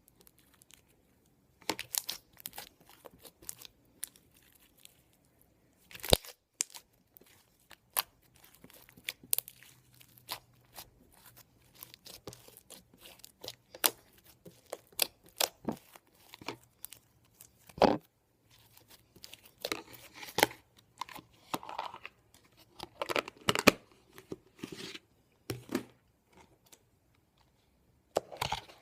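Homemade borax slime being squished and stretched by hand, giving irregular sharp clicks, pops and crackles with short quiet gaps between.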